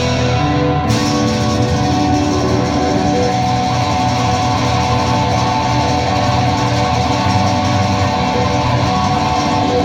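Acoustic band playing live, guitars strummed and picked through an instrumental passage of the song, without singing.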